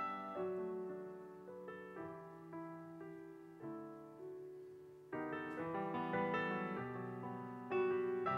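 Solo grand piano playing chords and single notes that ring and fade away, thinning out to quieter notes partway through and then swelling into fuller, louder chords about five seconds in.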